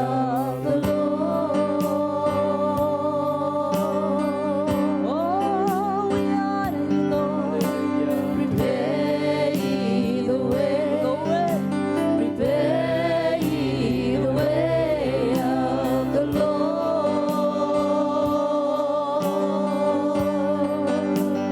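Gospel worship music: a voice singing long, wavering held notes over sustained keyboard chords and a steady beat.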